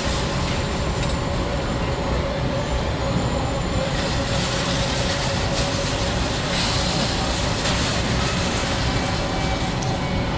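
Ceramic block factory loading machinery running steadily, a continuous mechanical rumble with a steady whine. A brief high hiss comes about seven seconds in.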